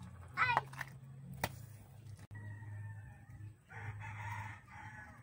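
Backyard chickens: a short, loud, high squawk less than a second in, then a rooster crowing for about a second near the end, over a low steady hum. A single sharp click about a second and a half in.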